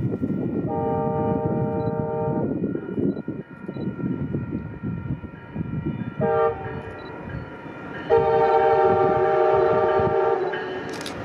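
Air horn of an approaching Amtrak passenger train, a chord of several notes sounded three times: a long blast, a short one, then a longer one, over a low rumble. Sharp clicks begin near the end as the train draws close.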